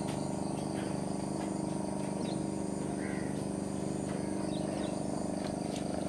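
Steady low drone of a boat engine running, with birds chirping briefly several times over it.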